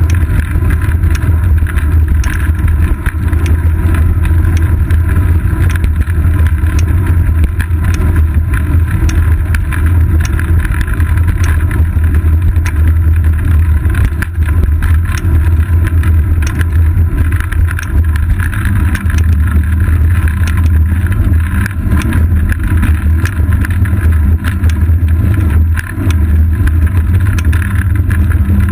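Wind and road vibration on a seat-post-mounted GoPro Hero 2 as the bicycle rides over asphalt: a loud, steady low rumble with frequent small clicks and rattles.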